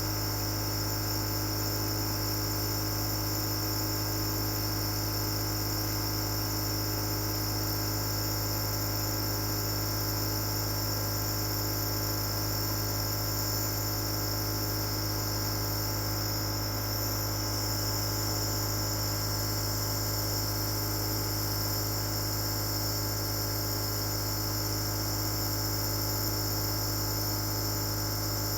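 Compressor nebulizer running: a steady, unchanging motor hum with a high, even whine above it.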